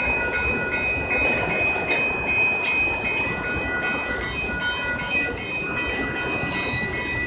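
Freight train of boxcars, tank cars and covered hoppers rolling past close by: a steady noise of wheels on rails, with thin high tones coming and going over it.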